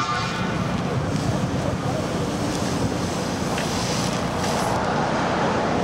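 Wind buffeting the microphone, a steady rumbling hiss, over outdoor street noise.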